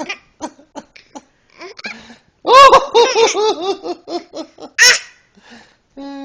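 Laughter: a loud run of about half a dozen quick, pitched "ha" sounds, followed a little later by a short sharp vocal burst and a brief held voice sound near the end.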